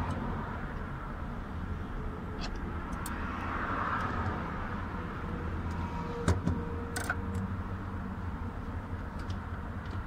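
A ratchet and 8 mm socket working the bolts of a fuel pump's retaining plate, giving a few scattered metallic clicks over a steady low background hum.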